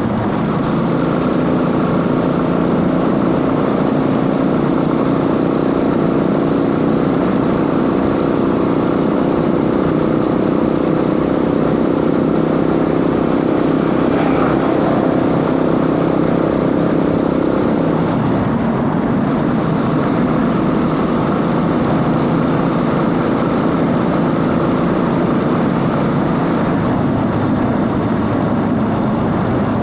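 Motorcycle engine running at a steady pace, its intake sound and drive chain audible along with it. A little past halfway the steady engine note changes.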